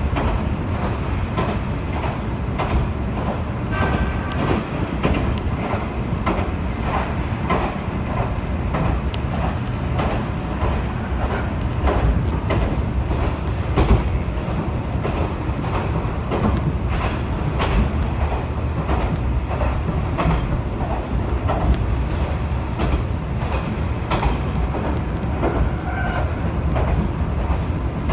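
Kanto Railway KiHa 2400 diesel railcar running, heard from inside the car: a steady low rumble of engine and wheels, with frequent sharp clicks and knocks of the wheels over rail joints.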